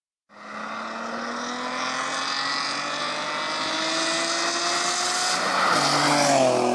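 2007 Nissan 350Z with headers, decats and a GReddy RS exhaust approaching under acceleration, its V6 exhaust note climbing steadily in pitch and growing louder. It then drops in pitch as the car passes close by near the end.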